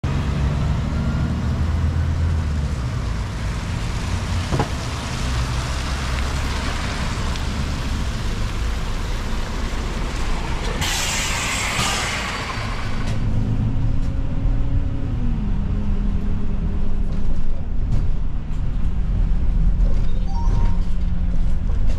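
Solaris Urbino IV 12 city bus engine running as the bus comes in to the stop, with a burst of pneumatic air hiss lasting about two seconds near the middle. Afterwards the engine is heard from inside the cabin, its note stepping down once.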